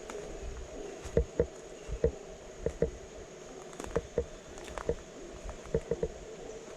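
Rainforest ambience: a steady high insect buzz over a wavering lower drone, broken by irregular soft knocks, often two or three close together.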